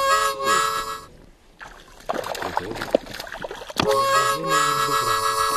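Harmonica music playing held chords, breaking off about a second in and coming back near the end.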